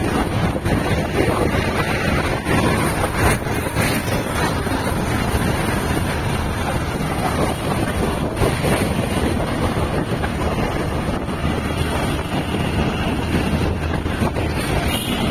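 Steady wind rushing over the microphone of a camera on a moving vehicle, mixed with the vehicle's low running and tyre noise.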